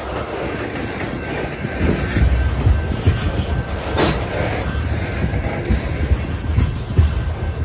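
Freight train of covered hopper cars rolling past close by. A steady low rumble carries wheels clacking irregularly over the rail joints, with a sharp knock about four seconds in.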